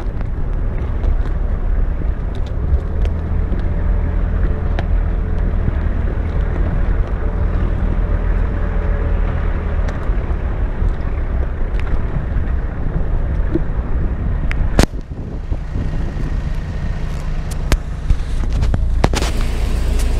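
Off-road 4x4's engine running as it drives over rough forest ground, a steady low rumble with wind on the microphone. A loud sharp knock about 15 s in, with a few smaller knocks near the end.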